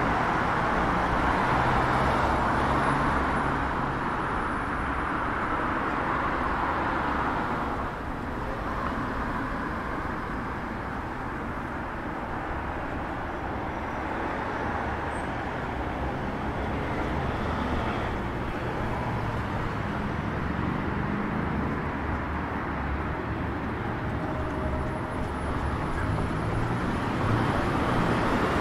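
Road traffic on a multi-lane city street: a steady rush of car tyres and engines going past, a little quieter from about eight seconds in and building again near the end.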